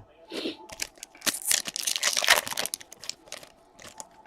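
Foil trading-card pack wrapper being torn open and crinkled: a short crinkle, then a dense burst of crackling and tearing lasting about a second and a half, with a few sharp clicks from handling.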